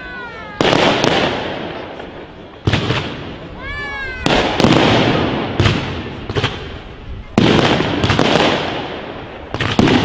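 Fireworks display: about six loud bangs come one to three seconds apart, each echoing away. Whistling rockets give gliding whistles near the start and again about four seconds in.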